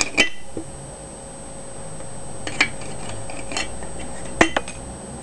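Aluminium beer can played as an improvised percussion instrument: about six sharp metallic taps and clicks on the can, scattered and unhurried, each with a brief tinny ring, the loudest near the end.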